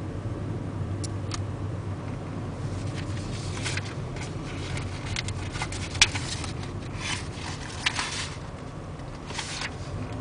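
Inside a car driving slowly, a steady low hum from the engine and tyres. From about two and a half seconds in, irregular scraping and rubbing noises come and go, with a sharp click about six seconds in.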